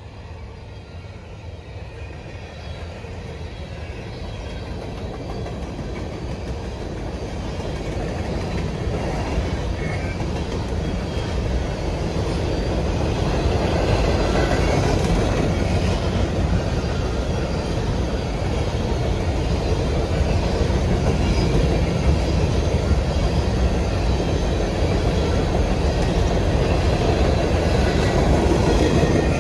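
Freight train's coal hopper cars rolling past, a steady noise of steel wheels on rail. It grows louder over the first dozen seconds and then holds steady.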